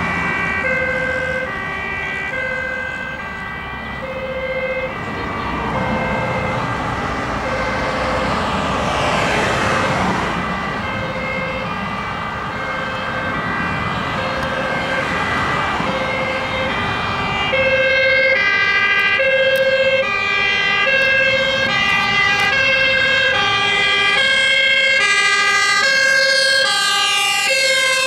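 Fire engine's two-tone siren alternating between a high and a low note over motorway traffic noise, growing louder as the truck approaches. Near the end the notes slide down in pitch as it passes.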